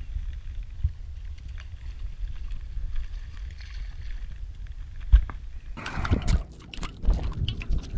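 Wind rumbling on the microphone over the lapping of water against a small boat. About five seconds in comes a sharp knock, then a loud close splash and rustle as a redfish is grabbed from the water. Clicks and knocks follow as the thrashing fish is held against the camera.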